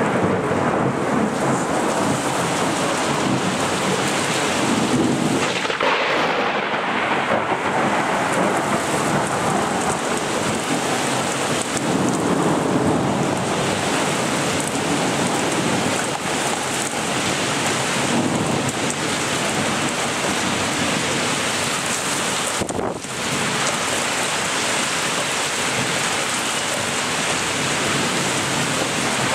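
Torrential rain pouring steadily, with low rolls of thunder swelling up now and then during a heavy thunderstorm.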